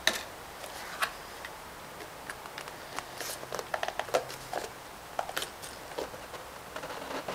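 Scattered light clicks, taps and scrapes of a cardboard box being handled and worked open.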